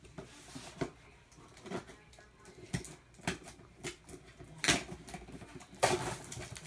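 Cardboard shipping box handled and opened by hand: scattered light taps and scrapes on the cardboard, with two louder rustling scrapes in the last two seconds as the taped flaps are pulled open.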